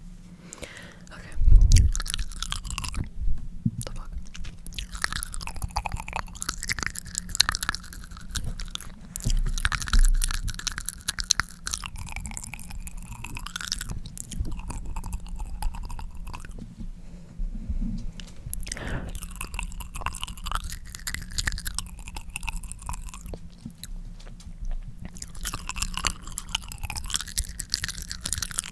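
Close-miked wet mouth sounds of tongue smearing: the tongue sliding around the mouth, making a steady run of sticky clicks and smacks. There are two louder low bumps, about a second and a half in and about ten seconds in.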